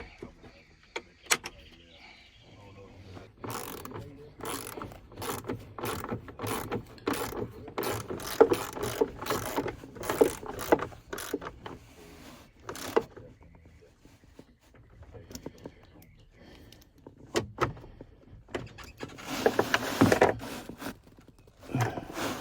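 Hand-tool work on metal tractor parts: a run of irregular sharp clicks and clanks, thickest in the first half, with a louder rattling clatter near the end.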